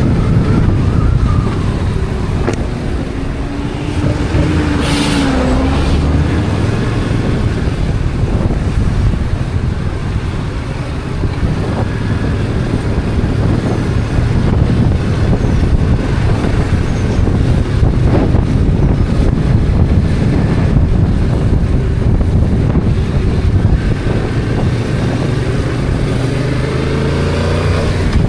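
Stock Yamaha XSR700's 689 cc parallel-twin engine and exhaust running under way in city traffic, its pitch rising near the end as it accelerates. A brief sharp sound from traffic is heard about five seconds in.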